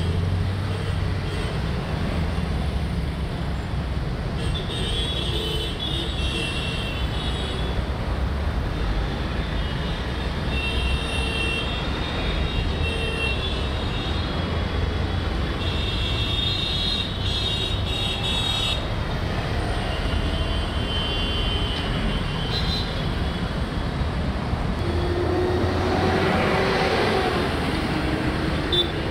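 Heavy road traffic on a flyover: a steady rumble of truck, car and auto-rickshaw engines and tyres, with short high-pitched sounds coming and going. A passing vehicle swells louder near the end.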